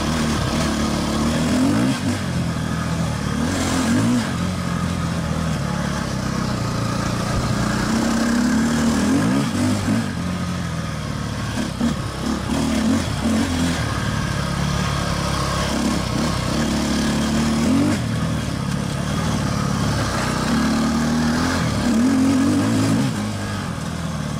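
KTM enduro dirt bike engine under riding load on a dirt trail, revving up and backing off over and over, its pitch climbing and dropping every couple of seconds.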